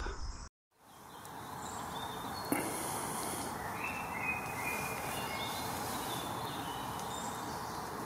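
Faint woodland birdsong over a steady background hiss: short, indistinct phrases from several birds, including a Eurasian blackbird singing. One soft click about two and a half seconds in.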